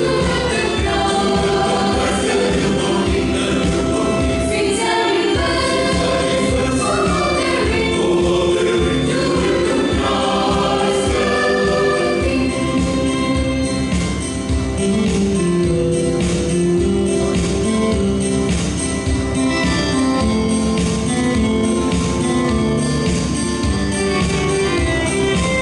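Mixed choir of men and women singing a Christian song in parts, with held notes moving from chord to chord over a light instrumental backing.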